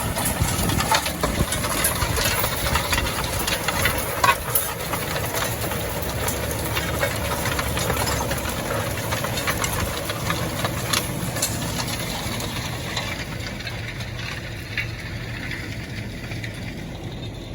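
A vehicle engine running steadily with rattles and knocks, easing off slightly toward the end.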